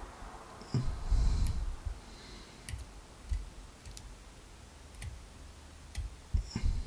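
Small, sharp metallic clicks at irregular intervals as driver pins are picked out of an American Lock 1105 lock cylinder with tweezers. Dull handling knocks come about a second in and again near the end.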